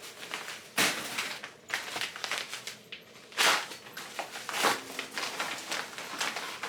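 Packaging rustling and crinkling as items are handled and unpacked, in several sharp bursts, the loudest about a second in and again about three and a half seconds in.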